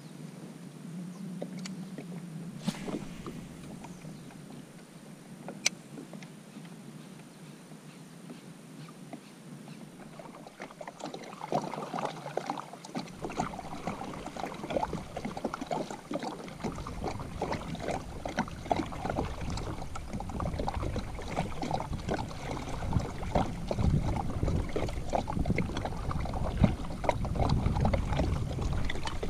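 Fishing kayak on the move, with water splashing and lapping against the hull. It is quieter with a few sharp knocks at first, then grows busier and louder about halfway through as paddle strokes start, with a low rumble joining in.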